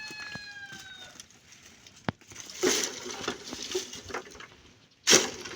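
Rooster crowing: the drawn-out, slowly falling end note of its crow fades out about a second in. Then come scattered short scratchy noises and a click, with a loud sudden burst near the end.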